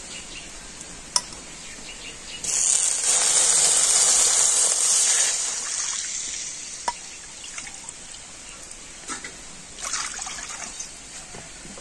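Milk being poured from a bowl into a steel karai of hot ghee: a loud rush that starts suddenly about two and a half seconds in and fades over a few seconds, then a second, shorter pour near the end.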